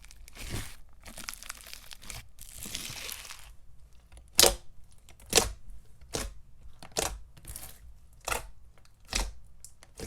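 Clear glue-based crunchy floam slime being squeezed and worked by hand, its foam beads crackling. About three and a half seconds in, this gives way to a run of sharp pops about once a second as the slime is pressed and released.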